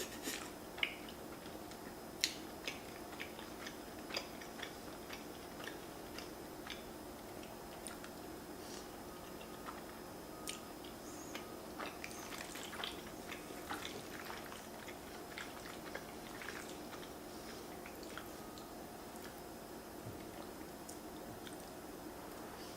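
A person chewing mouthfuls of fettuccine Alfredo with king crab close to the microphone: soft wet mouth sounds with scattered small clicks and smacks, over a faint steady hum.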